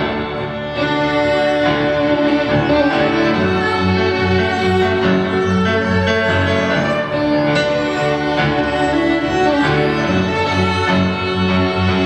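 Live chamber string ensemble playing: violins, cello and double bass bowing sustained notes over a repeating low line.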